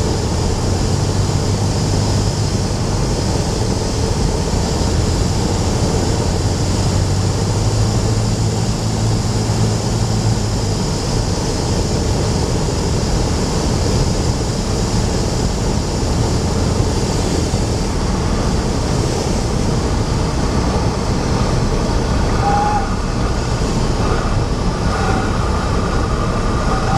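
Cessna 172 light aircraft during its landing: a steady rush of engine and air noise, with a low engine drone that fades out about eleven seconds in. A few short, high chirps come near the end.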